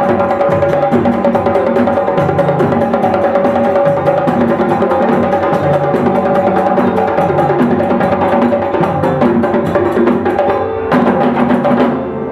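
A djembe ensemble playing a fast rhythm: hand-struck djembes over stick-beaten dunun bass drums, in a dense run of quick strokes with a steady ringing tone underneath. The strokes thin out briefly near the end.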